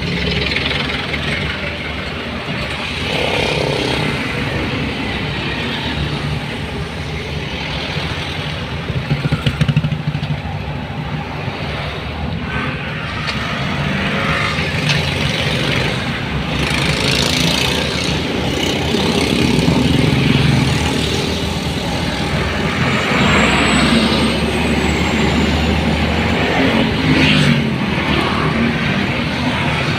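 Vehicle engine running and road noise while driving along a road, swelling and easing as traffic passes.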